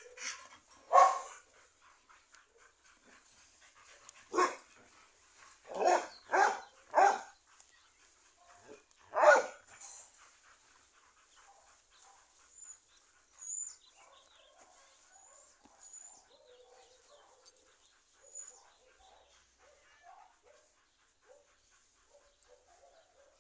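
A dog barking in single loud barks, six within the first ten seconds, three of them in quick succession about six seconds in; after that only faint sounds.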